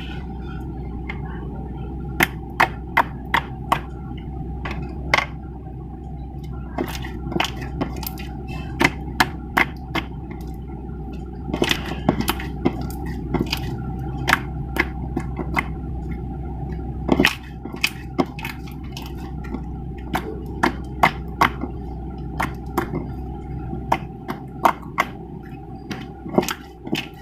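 Slime being squeezed and stretched by hand, giving irregular sharp pops and clicks, a few a second, over a steady low hum.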